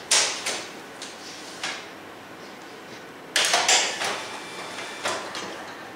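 Paper being handled and fed through the automatic document feeder of a Kyocera KM-C2525E copier: several short rustling swishes, the loudest about three and a half seconds in, as a feeder paper jam is deliberately provoked.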